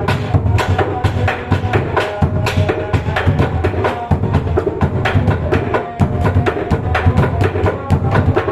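Bedug mosque drums beaten in a fast, dense rhythm: deep booming strokes on the drumheads mixed with sharp knocks, many strikes a second without a pause.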